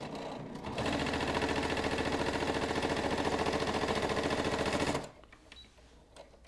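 Brother ST150HDH heavy-duty sewing machine stitching through three layers of leather with a fast, even run of needle strokes. It is a little softer at the start, where it was kind of trying at first, then runs steadily and easily before stopping abruptly about five seconds in.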